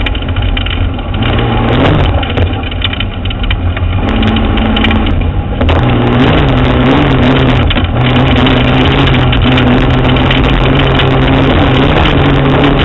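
Off-road vehicle's engine running as it drives slowly over a dirt trail, picked up close from under the chassis, with steady tyre and road noise. The engine pitch rises and falls briefly about two seconds in and again around six seconds.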